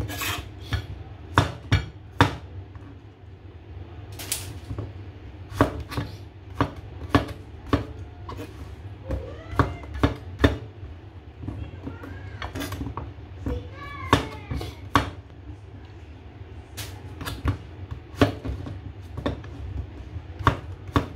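Kitchen knife chopping zucchini on a cutting board: sharp knocks of the blade hitting the board at an uneven pace, about one or two a second. A few short calls that rise and fall in pitch come through in the middle.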